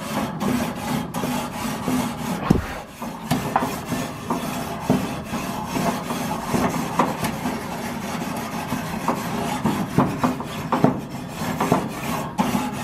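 Wire grill brush scrubbing back and forth over the metal grates of a gas grill: a continuous scraping rasp of wire bristles on metal, made up of many short strokes.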